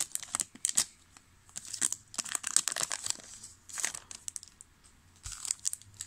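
Foil wrapper of a Topps football card pack being torn open and crinkled, in several short bursts of crackling with pauses between them.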